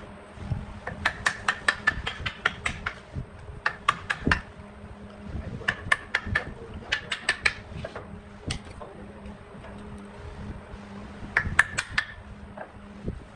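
Bursts of quick light clinking taps, several a second, in groups separated by pauses, over a steady low hum.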